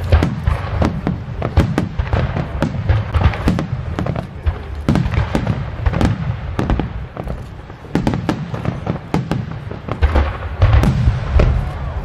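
Fireworks display: aerial shells bursting in rapid succession, a dense run of booms and crackles. It thins out briefly around seven to eight seconds in, then builds again with heavy booms near the end.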